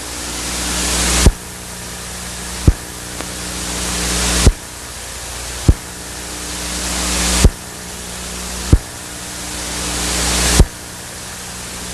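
Beatboxing into a microphone through a PA: a rhythmic pattern of swelling hiss, each swell cut off by a sharp bass thump, about every one and a half seconds.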